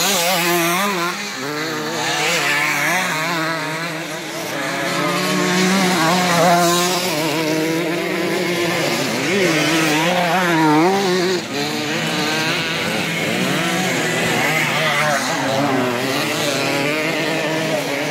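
Several classic motocross bikes racing, their engines revving up and down and overlapping as they go round the dirt track, with louder passes about six and ten seconds in.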